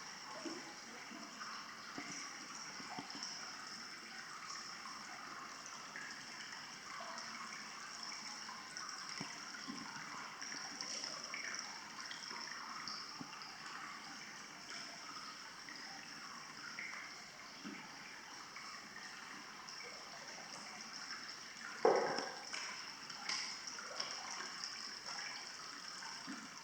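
Water running or trickling steadily, with small irregular splashes and a sharper, louder sound about 22 seconds in.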